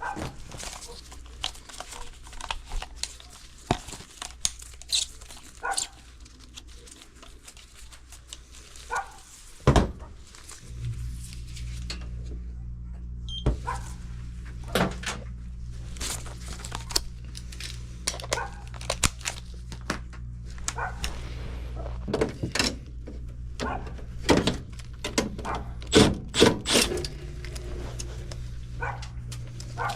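Irregular clicks and knocks of handling and tool work, with a steady low machine hum starting about ten seconds in.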